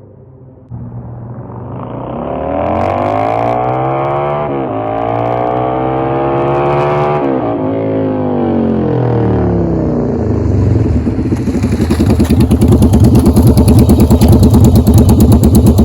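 1994 Yamaha XV750 Virago V-twin running through an aftermarket eBay exhaust: it pulls away with revs climbing through two upshifts, then the revs drop off, and near the end a loud, choppy exhaust note at low revs.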